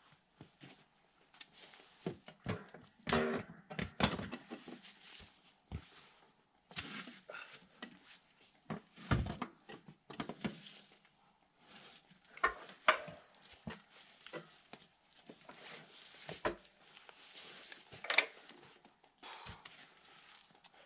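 Metal ATV snow plow blade and its mounting frame knocking and clanking against scrap metal and timber as it is dug out of a pile and lifted. The knocks come irregularly, a few of them sharp and ringing, with a heavier thump about nine seconds in.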